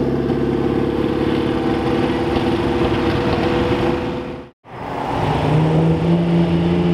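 Alfa Romeo 4C Spider's engine running at steady revs as the car drives away; the sound cuts off abruptly about four and a half seconds in. Then a Ferrari Testarossa's flat-twelve engine comes in, approaching with a steady tone that rises slightly.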